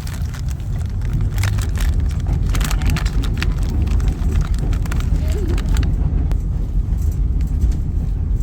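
Steady low rumble of a passenger train carriage running. From about a second and a half in to about six seconds, close crackling from a packet of rice crackers being handled rides over it.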